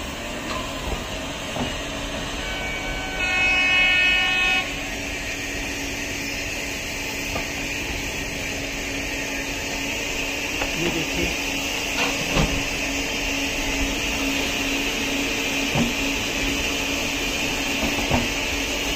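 Passenger coaches rolling slowly through an automatic coach washing plant: a steady hiss of water spray and rotating brushes over a steady machine hum, with a few faint knocks. A horn sounds once for about a second and a half, about three seconds in, the loudest sound.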